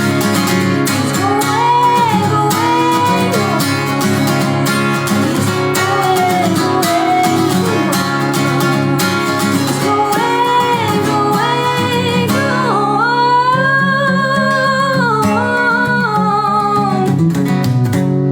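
Acoustic guitar strummed steadily under a woman's voice singing wordless, held and bending notes, with a long high vocal run in the second half.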